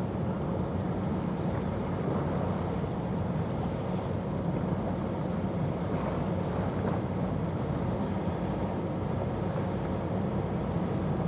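Steady low drone of a passing container ship with the wash of water, and wind on the microphone.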